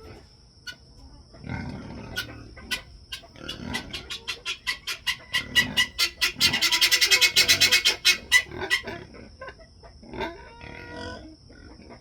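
Farm animals: pig grunts and chickens, with a rapid run of sharp clicks that speeds up and is loudest about seven seconds in, then dies away.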